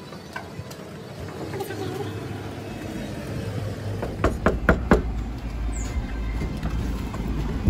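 Four quick, sharp knocks on a front door a little over halfway through, over a low wind rumble on the microphone.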